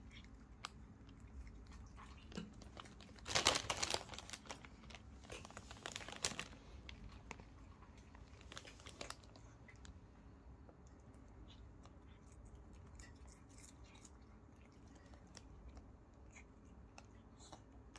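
A cat biting and chewing fresh arugula leaves held out by hand: short bursts of soft crunching, loudest about three to four seconds in and again around six seconds, then fainter scattered crunches.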